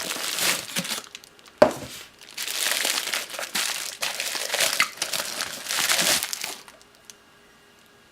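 Packaging wrap crinkling and rustling as a ceramic mug is unwrapped by hand, with one sharp knock about one and a half seconds in. The rustling stops shortly before the end.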